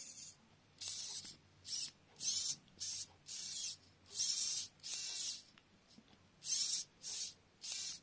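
Modified SG90 micro servo motor whirring through its 3D-printed PLA gear train and rack in about ten short bursts. Each burst is the linear actuator travelling to a new position set by the servo tester's knob.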